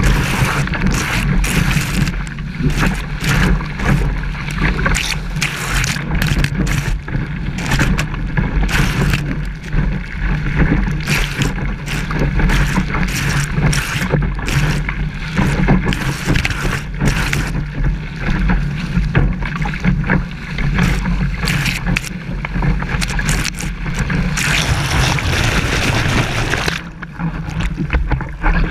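Seawater rushing and splashing over a body-mounted waterproof camera housing while a kitesurfer is dragged through surf, with a heavy low rumble of water and wind buffeting the case. Many sharp splash hits run throughout, and there is a denser hiss of white water a few seconds before the end.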